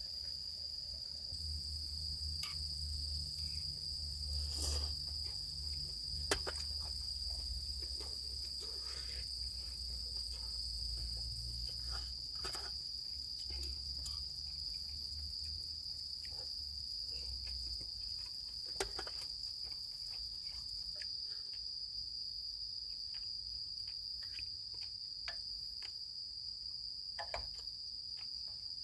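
Crickets singing in a continuous high, steady chorus. Underneath there is a low rumble that fades out about two-thirds of the way through, and there are a few scattered soft clicks and knocks.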